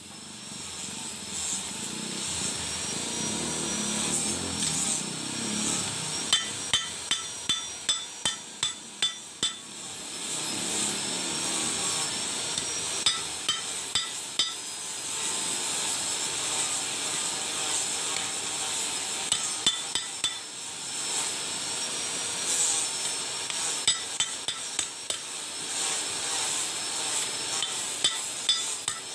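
Hammer striking metal in several quick runs of blows, about two to three a second, each blow ringing briefly, over a steady high hiss.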